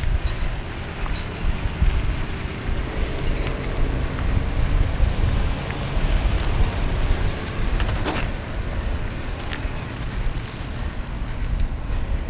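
Wind buffeting a handlebar-mounted action camera's microphone over the rumble of a mountain bike rolling along a dirt trail, with a few sharp clicks and rattles from the bike, the clearest about eight seconds in.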